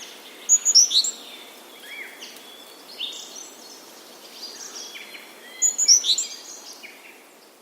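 Forest songbirds singing and chirping over a soft background hiss, in a spring woodland ambience. There are two louder flurries of high chirps, about half a second in and around six seconds in, and the sound fades out near the end.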